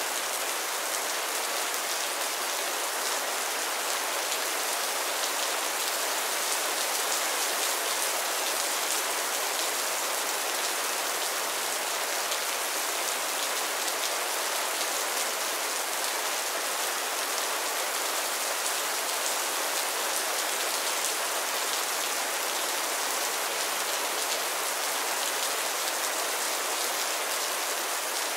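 Heavy rain falling steadily: a dense, even hiss of countless drops, bright and high with little low rumble.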